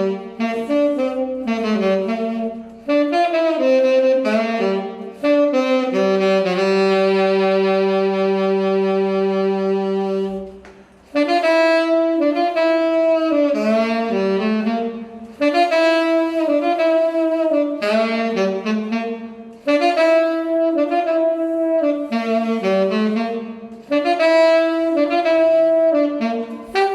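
A single saxophone playing a melody in short phrases with breaths between them. About six seconds in it holds one long low note for some four seconds.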